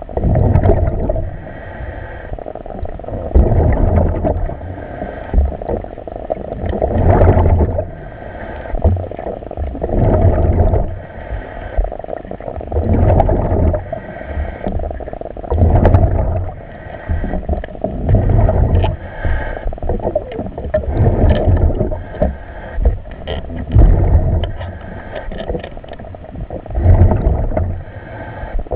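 Underwater breathing of a commercial diver on surface-supplied air: each breath swells and fades, with exhaled bubbles gurgling out, about every three seconds over a steady hiss.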